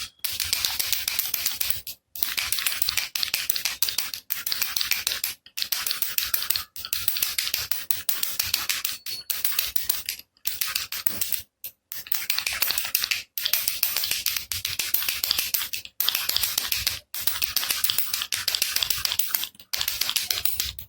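Baby rattle (jhunjhuna) shaken over and over, its loose pellets giving a dense, bright rattle. It comes in bursts about a second long with short pauses between them.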